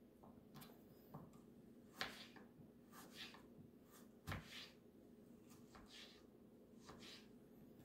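Kitchen knife slicing white button mushrooms on a plastic cutting board: faint, irregular taps as the blade goes through and meets the board, the loudest a little over four seconds in.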